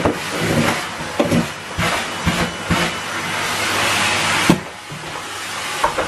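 Henry canister vacuum cleaner running with a steady suction hiss, broken by several short knocks and clatters of the hose and tools against the floor and skirting board. The loudest is a sharp knock about four and a half seconds in.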